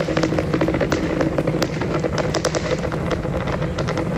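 Rumble of the Super Heavy booster's 33 Raptor engines during ascent, heard as a steady roar with dense, continuous crackling.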